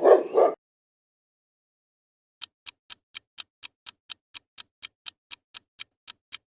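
Clock ticking, a countdown timer sound effect: sharp, evenly spaced ticks at about four a second, starting a couple of seconds in.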